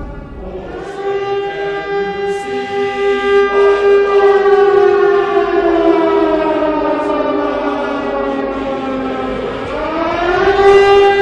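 Civil defense siren wailing: a steady siren tone holds while a second tone slides slowly down in pitch, then climbs back up near the end.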